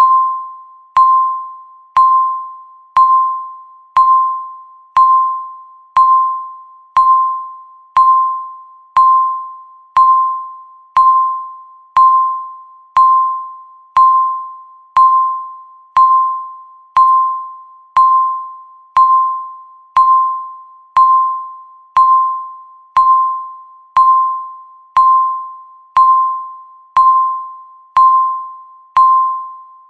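Countdown timer beeping once a second: a single clear, bell-like tone, each starting sharply and fading away before the next.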